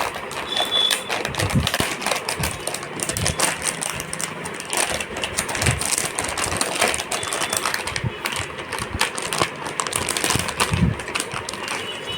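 Dense, irregular clicking and rustling of hands handling a graphics card and its packaging.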